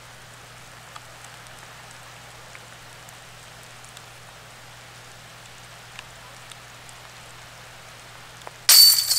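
Steady rain hiss with a few light drips, then near the end a sudden loud metallic jangle as a putted disc golf disc strikes the basket's chains, which ring on. The putt is made, for par.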